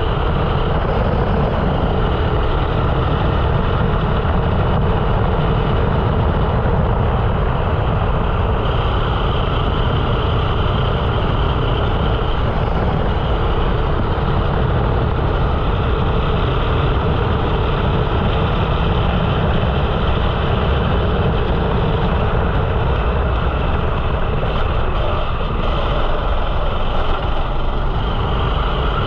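Rental kart's 13 hp single-cylinder four-stroke engine running continuously on track, heard from an onboard camera mounted on the kart, at a steady loud level.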